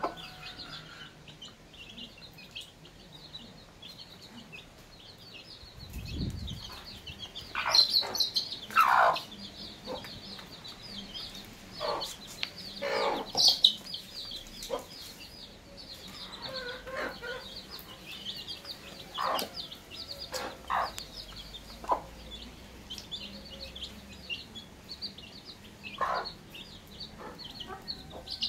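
Young chicks peeping continuously in quick, high cheeps. A hen clucks louder and lower several times over them, loudest about eight to nine seconds in and again around the middle.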